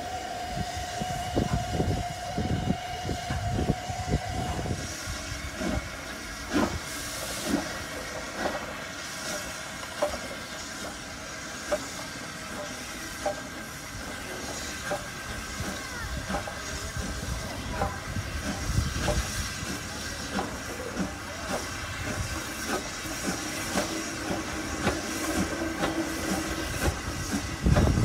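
Steam locomotives working slowly through a yard. Exhaust beats and a steady tone during the first few seconds, the tone cutting off about five seconds in, then steam hiss with irregular clicks and knocks of wheels over rail joints and points.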